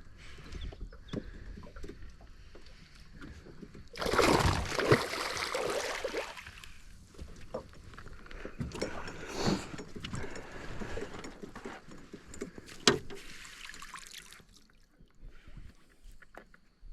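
Hooked barramundi splashing and thrashing at the water's surface: a loud splash lasting a few seconds about four seconds in, more splashing a few seconds later, and a single sharp knock near the end.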